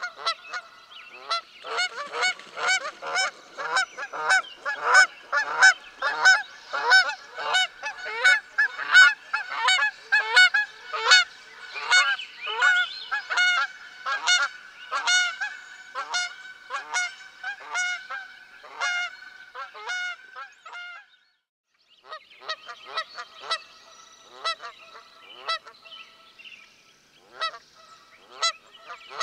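A flock of geese honking: many rapid, overlapping honks. The chorus cuts off suddenly about two-thirds of the way through, then after a second's silence comes back sparser and softer.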